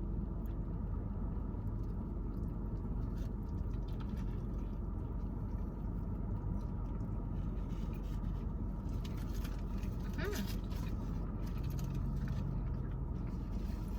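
Steady low rumble of a car cabin with the engine running, with small clicks and rustles of people chewing and handling food wrappers, and a brief hum of a voice about ten seconds in.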